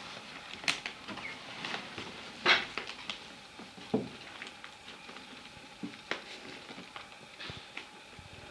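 Two-week-old puppies moving about on their bedding: irregular soft taps, rustles and scrabbling, with a louder knock about two and a half seconds in and another near four seconds.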